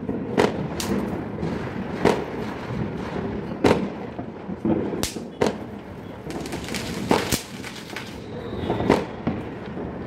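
Firecrackers going off at irregular intervals: about ten sharp bangs, some close and some farther away, over a steady background of more distant crackling.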